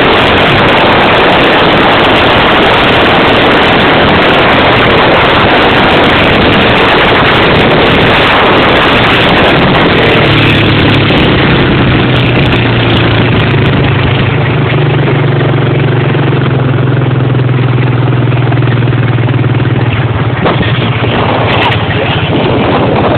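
Honda Rancher 350 ATV's single-cylinder four-stroke engine running loud through a newly fitted exhaust pipe. It is a dense, rough noise for about the first ten seconds, then settles into a steady, even, lower engine note for the rest.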